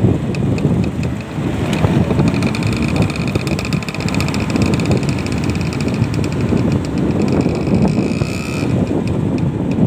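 Wind rushing and buffeting over the microphone on a moving motorcycle, with the engine running steadily underneath.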